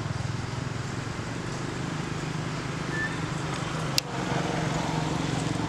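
A steady low engine hum, with one sharp click about four seconds in.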